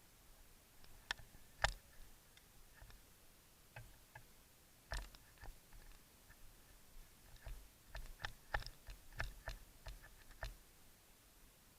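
Irregular sharp clicks and snaps, a few scattered early on and a denser run of them in the second half.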